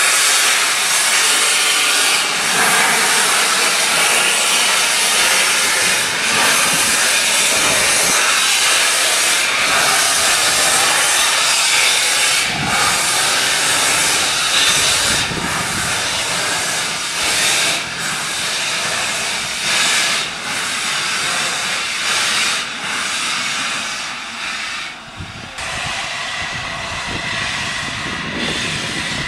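Steam locomotive LNER A3 60103 Flying Scotsman pulling away: a loud hiss of steam from its open cylinder drain cocks, with exhaust beats that quicken as it gathers speed. The sound grows fainter over the last few seconds as the engine draws off.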